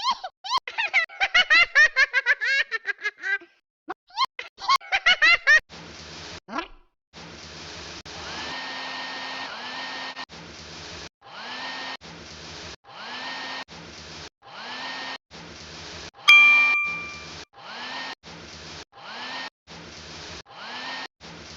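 High-pitched laughter, then a steady electric whirring hum that switches on and off about once a second, each start opening with a short rising whine. A single bright ding sounds about two-thirds of the way through.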